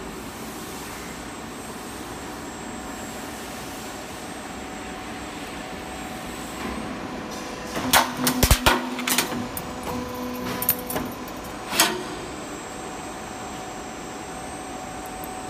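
K-style seamless gutter roll forming machine running steadily, with a faint machine whine. About eight seconds in comes a burst of sharp metallic clanks, and there is another single clank near twelve seconds.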